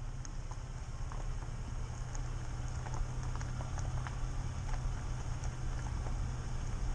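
Car driving on a wet road: a steady low drone from the engine and road, with tyre hiss and scattered small ticks.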